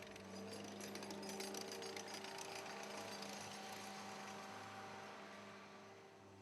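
Engine of construction equipment running at a steady speed, with a rapid metallic clicking rattle over the hum that eases off after a few seconds; the sound fades slightly near the end.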